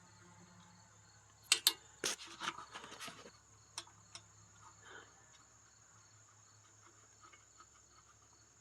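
A few sharp metal clicks and scrapes of hand tools working an engine's valve-clearance adjuster and locknut, bunched between about one and a half and three seconds in, with a single tick later on. Under them runs a steady, high, thin cricket chirr.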